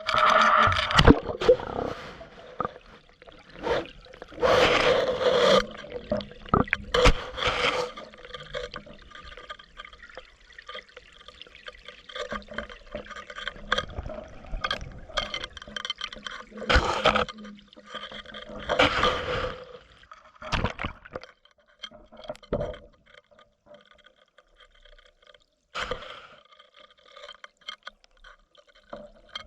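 Water sloshing and gurgling around a submerged GoPro camera in irregular surges, with a few sharp knocks.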